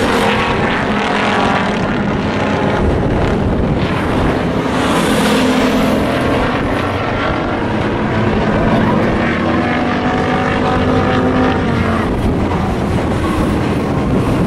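Racing trucks' engines running around an oval track, several at once, their pitch rising and falling.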